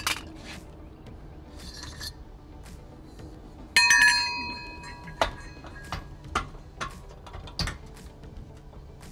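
Metal clinks and knocks from tools and hardware being handled on a steel trailer tongue during a tongue-jack swap. About four seconds in comes one loud ringing clang, then several sharper clicks.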